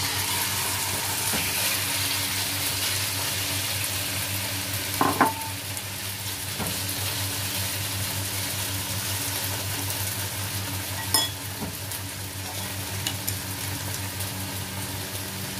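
Marinated chicken breast pieces sizzling in hot oil in a wok, the hiss starting the moment they hit the pan and running steadily while chopsticks stir them. Two sharp clicks, about five seconds in and again near eleven seconds.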